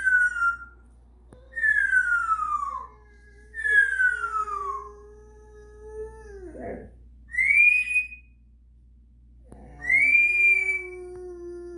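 A boxer dog howling in long drawn-out notes while a parrot answers with loud whistles, the first three falling in pitch and the later ones rising.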